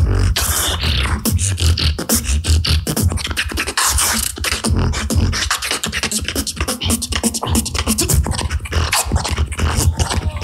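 Competitive beatboxing: a fast, dense run of vocal drum sounds, with heavy bass kicks under sharp snare and hi-hat clicks.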